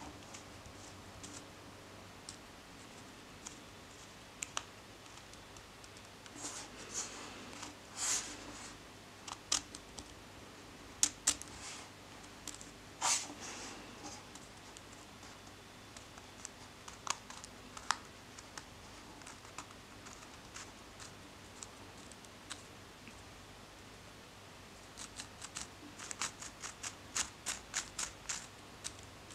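3D-printed plastic mechanical iris turned by hand, its ring and leaf blades clicking and scraping as the aperture opens and closes. Near the end, a quick run of clicks as the ring is turned back and forth fast.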